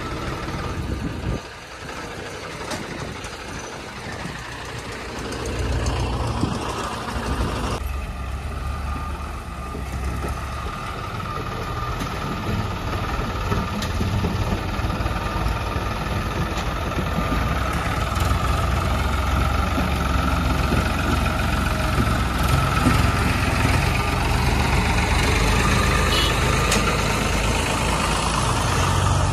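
Diesel tractor engines running with a steady low rumble, growing gradually louder over the second half as a tractor pulling a trolley comes nearer.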